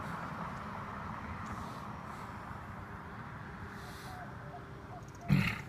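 A small dog barks once, short and loud, about five seconds in, over steady outdoor noise and light wind on the microphone.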